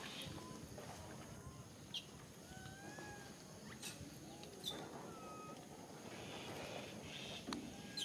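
A handful of faint, short, high-pitched animal chirps and thin squeaky calls, a second or so apart, over a low background hiss.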